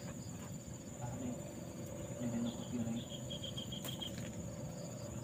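Crickets and other insects chirping: a steady high-pitched trill, with a quick run of about eight chirps about three seconds in.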